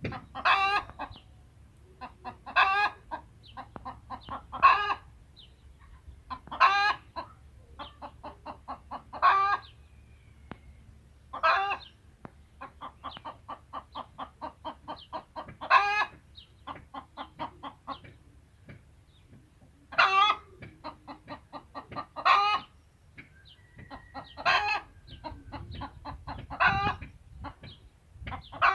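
Hens clucking and cackling: a loud, pitched call about every two seconds, with runs of rapid short clucks in between.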